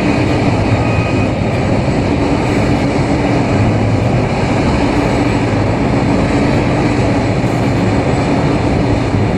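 Large diesel engine of heavy mining machinery running steadily, a loud, continuous low rumble with a constant hum.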